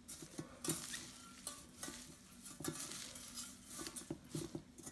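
Hands squeezing and kneading green flower clusters with salt and sugar in a stainless-steel pot, mixing them in for pickling. It is a soft, crackly rustling with many small irregular ticks and knocks.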